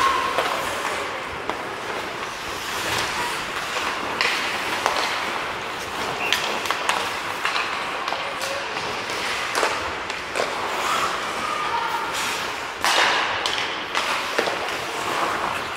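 Ice hockey play in an indoor rink: a steady scrape of skates on the ice, with sharp clacks and thuds of sticks, puck and boards scattered through.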